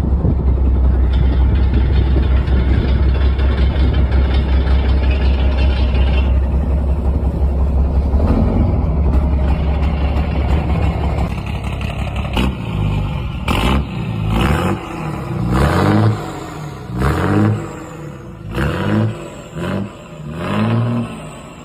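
Boat engine turning the propeller, running loud and steady at high revs. About halfway through it eases off, then is revved up and down in a series of short surges, roughly one a second.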